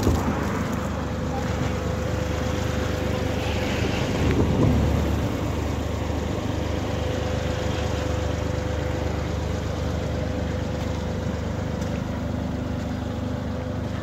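Wind rumbling on the microphone outdoors, gusting up about four seconds in, over a steady machine hum that fades out near the end.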